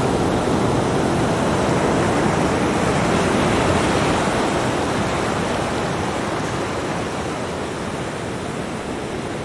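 Small ocean waves breaking and washing up a sandy beach, a steady rush of surf that slowly grows quieter toward the end.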